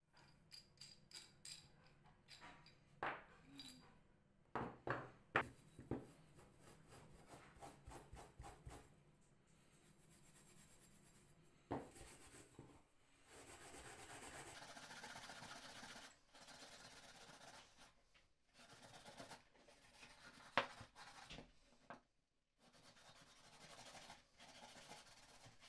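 A rusty steel pipe wrench being taken apart by hand, with scattered clicks and light knocks of its metal parts. About halfway there are a few seconds of steady rubbing and scraping.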